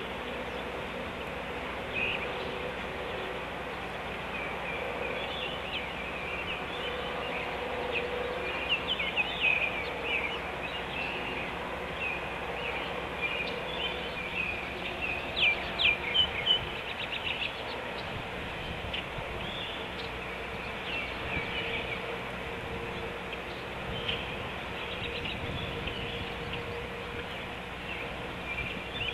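Great blue heron nestlings making their mewing, chirping calls in the nest: a steady stream of short high chirps over a steady low drone, with a run of four sharp, louder clicks about halfway through.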